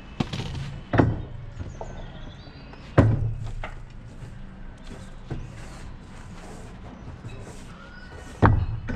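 Building stones knocking against one another as they are sorted and moved on a stone pile: three sharp knocks, about a second in, about three seconds in, and near the end.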